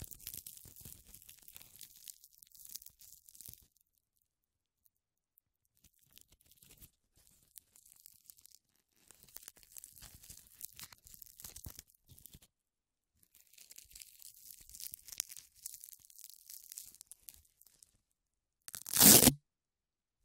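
Velcro hook-and-loop fastener strips peeled apart slowly four times, each a crackly tearing sound lasting a few seconds. Near the end comes one quick, loud rip.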